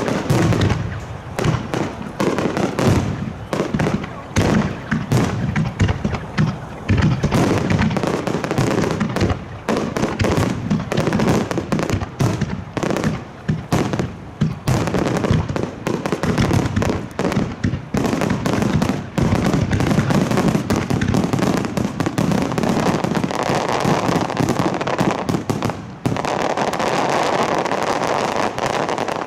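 A starmine fireworks barrage: many aerial shells bursting in rapid succession. Near the end it turns into a dense continuous crackle that cuts off suddenly.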